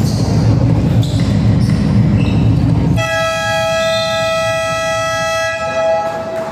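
Basketball scoreboard buzzer sounding one long steady blare, about three and a half seconds, starting about halfway in. Before it there is a loud, low din.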